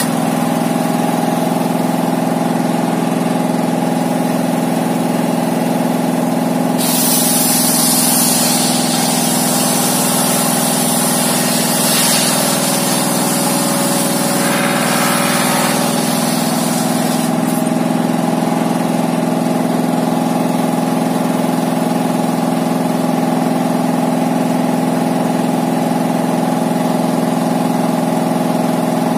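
Single-cylinder 'dompeng' diesel engine running at a steady pitch, driving a homemade table circular saw. From about 7 to 17 seconds a loud hiss joins it as the spinning saw blade cuts through a wooden slab.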